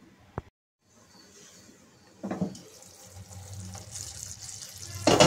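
Onion-tomato masala sizzling in an uncovered nonstick pan over a gas flame: a steady hiss that grows louder from about three seconds in, with a brief knock a little after two seconds and a louder clatter near the end.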